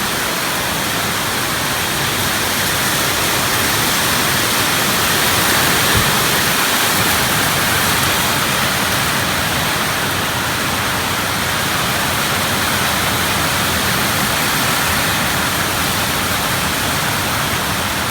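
Heavy storm rain pouring down steadily, a dense unbroken hiss with no let-up.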